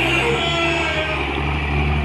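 Komatsu PC200 hydraulic excavator's diesel engine running steadily under load as the bucket digs into soil.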